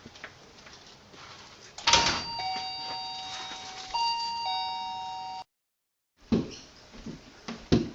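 Two-tone doorbell chime rung twice, each time a high note followed by a lower one: ding-dong about two seconds in, and again about two seconds later. The sound cuts off suddenly, and a few thumps follow near the end.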